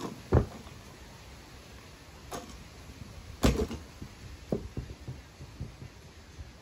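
A loaded barbell with black plates set down onto a rubber-matted wooden lifting platform: two heavy thuds, one about a third of a second in and another about three and a half seconds in, with a few lighter knocks between and after as the bar settles.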